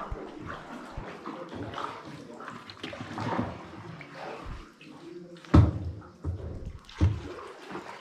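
Kayak paddles dipping and splashing through the water inside a rock tunnel, with two louder thumps in the second half.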